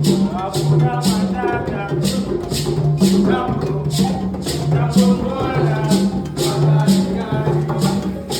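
Upbeat music, with a shaker keeping a steady beat over a repeating bass line and a wavering melody.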